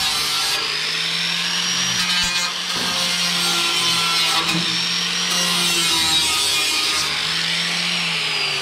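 Angle grinder with a flap disc grinding rusted sheet steel on a car's rocker area, running steadily, its high motor whine wavering slightly as the disc is pressed against the metal.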